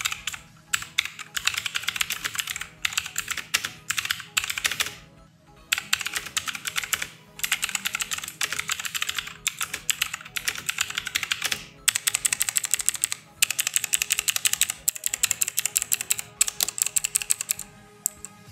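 Motospeed CK888 mechanical keyboard with clicky blue switches, a Cherry MX Blue knockoff, being typed on fast. The clicks come in dense bursts with short pauses between them, and the typing stops near the end.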